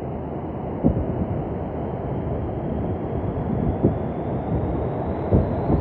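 Hurricane wind blowing hard across the microphone as a steady low rumbling rush, with three or four sharper gusts buffeting it.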